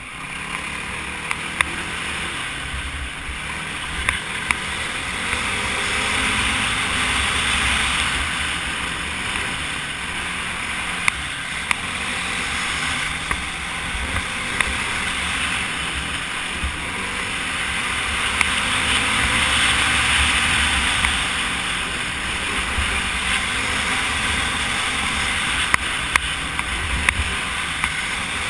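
Quad engine running at speed under wind noise on the mounted camera, swelling louder twice, with scattered sharp knocks.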